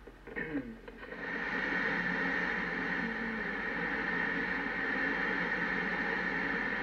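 A steady hissing noise, static-like with a held high tone in it, sets in about a second in and runs on unchanged.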